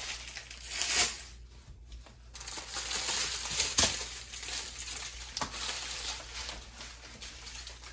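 Thin plastic packaging crinkling and rustling as it is handled, with a couple of sharper clicks partway through.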